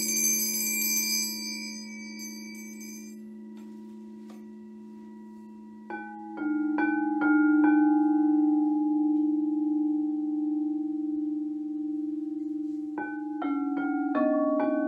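Crystal singing bowls ringing with long sustained tones. A high shimmering chime fades out in the first second or so, then two runs of about five quick strikes, about six seconds in and again near the end, set further bowls ringing at new pitches.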